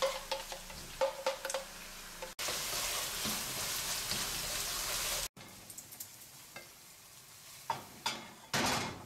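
Wooden spatula stirring and scraping food in a wok, with the asparagus, salmon and blended asparagus cream sizzling over a gas flame. The sizzle is loudest and steadiest for about three seconds in the middle, with scattered clicks of the spatula before and after it.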